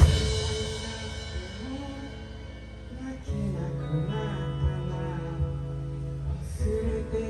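Live rock band: a loud full-band chord rings out and fades away, then from about three seconds in the guitar plays more quietly over a held low bass note.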